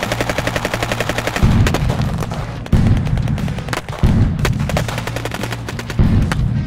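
Rapid machine-gun fire, an even rattle of shots, with four heavy low booms breaking in from about a second and a half in while the shooting goes on.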